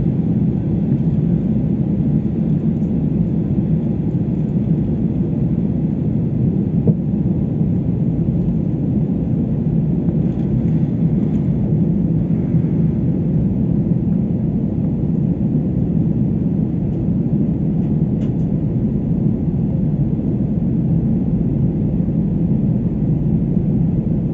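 Steady cabin rumble of a Spirit Airlines Airbus jet taxiing, its turbofan engines running at low, even power, heard from a window seat inside the cabin.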